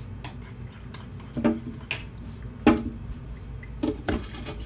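Kitchen knife chopping green onions on a cutting board: about five irregular knocks, the loudest near the middle, over a low steady hum.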